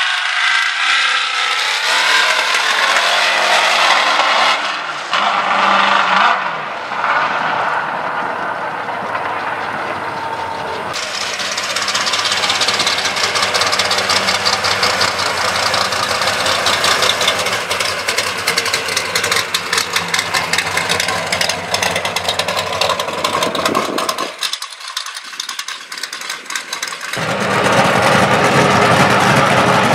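Drag-racing car engines running and revving, loud and rough. The sound changes abruptly several times as one engine gives way to another.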